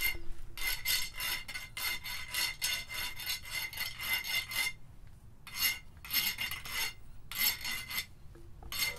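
Hand filing on a small metal piece: rapid back-and-forth rasping strokes with a faint metallic ring. The strokes come in runs, with a few short pauses in the second half.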